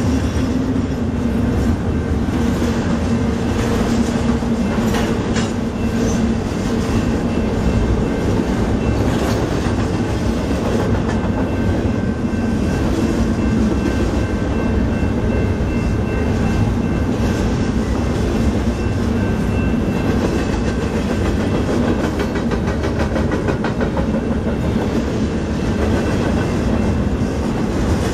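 Double-stack intermodal container train rolling steadily past, its freight car wheels clicking over the rail joints in a continuous clickety-clack and rumble. A faint high whine from the wheels runs through the middle.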